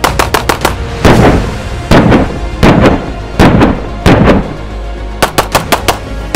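Rapid strings of pistol shots from a Wilson Combat P320 pistol, with five louder, longer-ringing bangs about a second apart in the middle, over background music.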